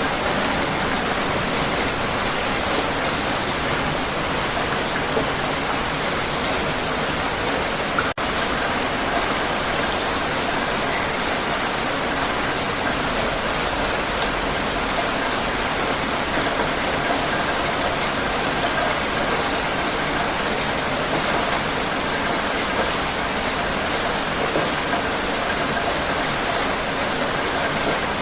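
Heavy rain falling steadily, a dense even hiss of drops, with a momentary dropout about eight seconds in.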